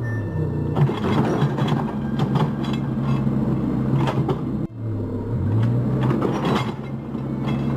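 Caterpillar 304 mini excavator's diesel engine working under load, its pitch sagging and climbing, with scattered knocks and scrapes. The sound drops out for an instant a little past halfway, then the engine picks back up.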